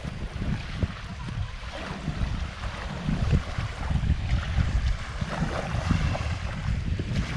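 Strong wind buffeting the microphone in a gusty, fluttering low rumble, over a steady hiss of wind and shallow surf.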